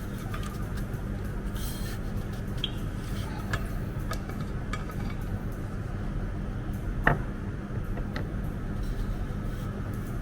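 Dishes, glassware and cutlery being handled in a kitchen: scattered light clinks and taps over a steady low hum, with one sharper click about seven seconds in.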